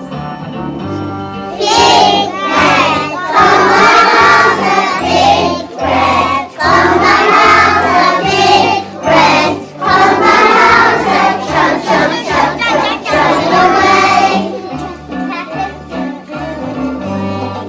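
A song sung by a group of voices over instrumental accompaniment; the voices stop about three-quarters of the way through, leaving the accompaniment playing more quietly.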